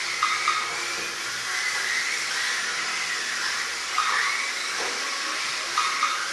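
Several 1/28-scale electric RC cars racing: a steady high hiss and whine of small electric motors and gears, with whines that rise and fall in pitch as the cars speed up and slow down.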